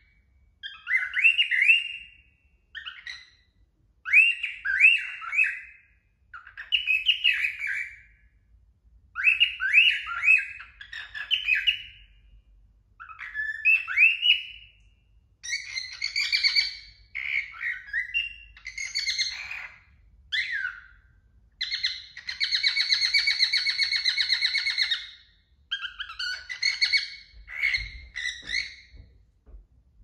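Male cockatiel singing: a string of short whistled phrases made of quick rising chirps, with brief pauses between them. From about halfway the notes turn harsher and buzzier, including one held for about three seconds.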